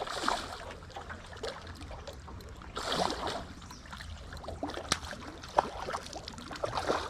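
Water splashing and lapping around a small fishing boat, with scattered small knocks and clicks; the loudest splash comes about three seconds in.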